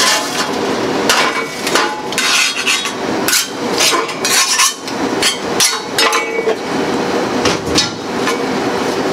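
Repeated metal clanks and scraping from a commercial charbroiler's metal grates being scrubbed with a wire brush and lifted out, knocking against the steel of the broiler.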